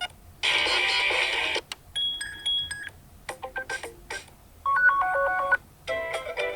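Ringtone previews on a BlackView BV6600E smartphone playing one after another: five different short electronic melodies, each lasting about a second before it cuts off and the next begins.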